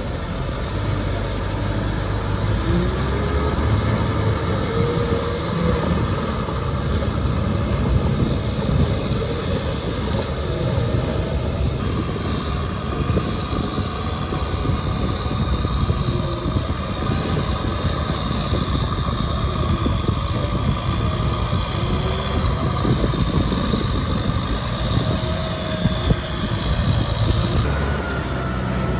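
Kubota M6040SU tractor's diesel engine running steadily under load as its rear rotary tiller churns through wet rice-field mud. The engine note changes about twelve seconds in.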